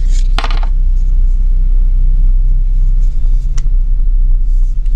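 A loud steady low hum throughout, with a brief rustle about half a second in and a single light click about three and a half seconds in as a knife in a wooden sheath is handled.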